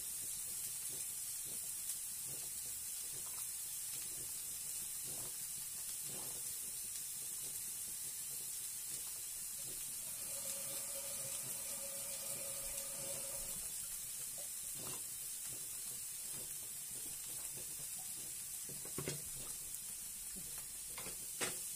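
Diced onion frying in oil in a frying pan, giving a steady sizzling hiss, with a few light knocks scattered through it. A faint steady tone sounds for about three seconds around the middle.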